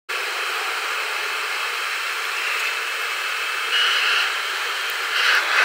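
Jet airliner's engines and cabin air heard from a window seat while the plane taxis: a steady hiss, swelling briefly with a thin high whine about four seconds in and rising again near the end.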